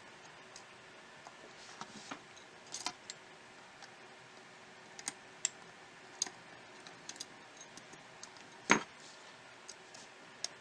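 Scattered light clicks and taps of small repair tools and smartphone parts being handled, with one sharper, louder click near the end.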